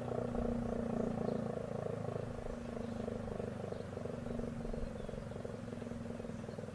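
ACA P-15 outdoor warning siren sounding a steady tone, with a fast, even pulsing in its higher notes, slowly fading.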